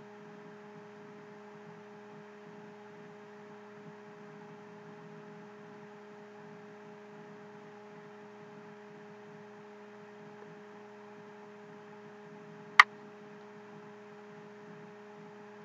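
Faint steady hum made of a few even tones, with one sharp click about thirteen seconds in.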